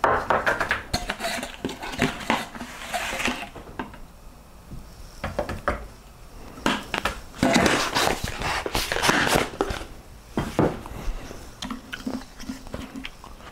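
Clatter of plastic containers and a scoop being handled while a protein shake is made: a run of clicks, knocks, rattles and scraping, busiest at the start and again from about six to ten seconds in.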